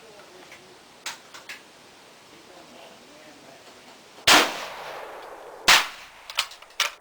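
Two loud rifle shots about a second and a half apart, the first about four seconds in, each with a short echoing tail, followed by a few lighter clicks.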